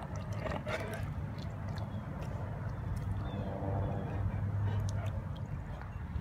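A steady low motor hum with scattered light ticks.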